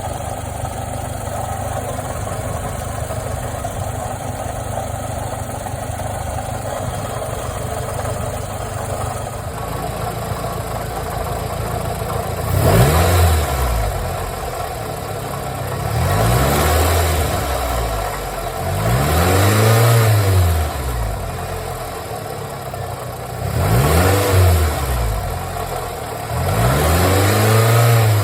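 2005 Toyota Camry engine idling steadily, then revved up and let fall back five times in the second half. It carries a clunking noise that sounds like rod knock or piston slap but that the owner diagnoses as a failing water pump.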